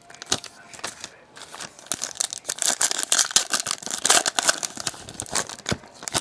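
Plastic trading card pack wrappers being torn open and crinkled: a continuous run of crackly rips and rustles.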